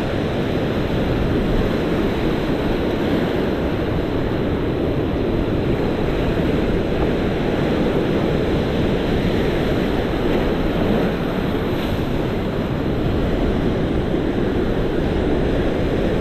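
Steady surf breaking and washing over rocks, with wind rumbling on the microphone.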